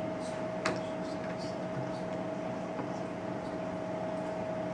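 Room tone: a steady hiss with a constant faint hum, and one soft click less than a second in.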